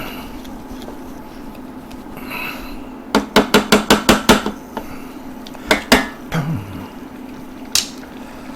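A spoon knocking against a cooking pot while stirring in and breaking up bouillon cubes: a quick run of about nine knocks about three seconds in, then a few more single knocks.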